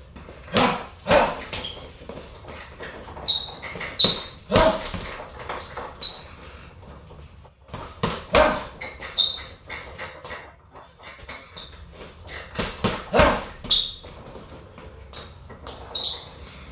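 Punches landing on a hanging Everlast heavy bag in irregular bursts of sharp thuds, the loudest combinations about a second in, around four seconds in, around eight seconds in and around thirteen seconds in, with short high squeaks between them.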